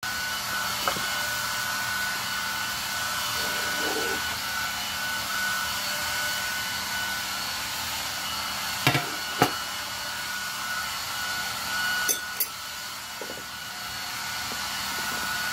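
Steady, even whooshing hiss of a running blower-type machine, with a faint steady tone. Over it come a few sharp clinks as a glass shaker and a fork are handled, two close together about nine seconds in and two more about twelve seconds in.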